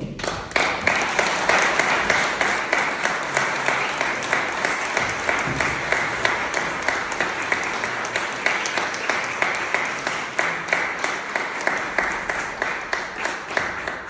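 Audience applauding, starting suddenly and thinning out toward the end.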